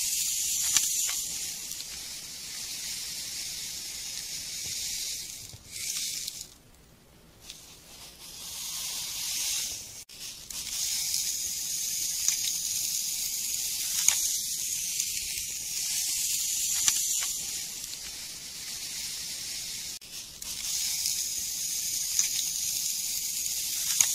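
Fine dry play sand hissing as a plastic toy shovel scrapes, scoops and sprinkles it in a plastic tray, with a few light clicks. The hiss drops away for a moment about seven seconds in.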